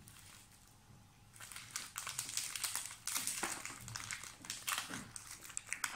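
Plastic chocolate-bar wrappers being torn open and crinkled by hand, starting about a second and a half in and going on as a dense, busy crackle.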